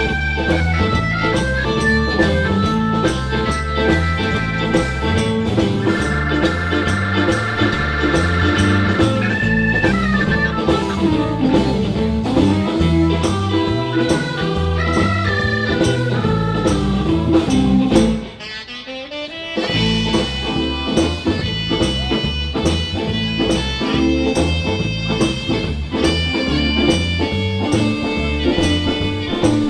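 Live blues band playing: organ, electric guitar and drums, with a held wavering organ chord about a quarter of the way in. The band drops out briefly about two-thirds of the way through, then comes back in.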